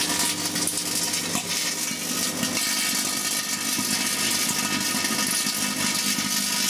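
Microwave oven running with its outer cover off: a steady electrical hum under a dense, even hiss.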